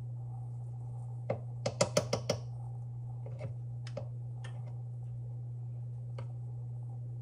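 A quick run of about six light clicks and taps, then a few scattered single clicks, over a steady low hum.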